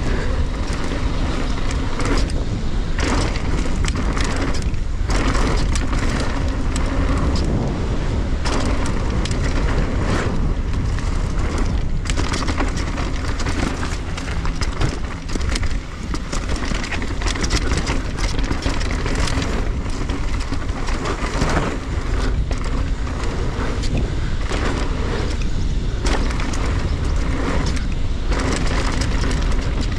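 Norco Range VLT electric mountain bike ridden fast down a dry, sandy dirt trail: tyres rumbling over dirt and roots, with frequent clatters and knocks from the bike rattling over bumps, and wind buffeting the microphone.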